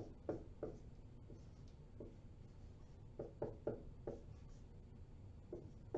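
Writing strokes: short, faint scratches and taps of a pen or marker as something is drawn, in a few quick groups, with several near the start, a cluster about three to four seconds in and one more near the end.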